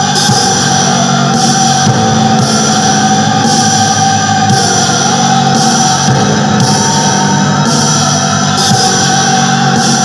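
Funeral doom metal music: dense, heavy droning tones held steadily, with a high shimmer pulsing about once a second.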